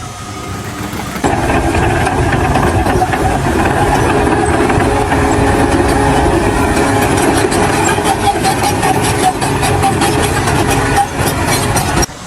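An engine running loud and steady. It comes in suddenly about a second in and cuts off abruptly just before the end.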